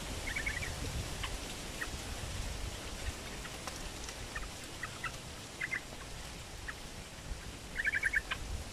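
Small yellow birds (chim trao trảo) chirping in and on a bamboo trap cage: quick runs of short high chirps about half a second in, around six seconds and loudest near the end, with scattered single chips between, over a low background rumble.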